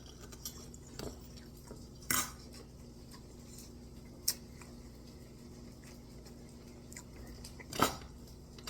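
A few scattered clinks of a fork against a plate, the loudest about eight seconds in, over a faint steady hum.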